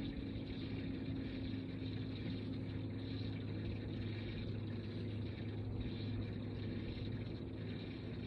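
A bass boat's electric trolling motor running steadily: a constant low hum with a higher whine on top that weakens a few seconds in.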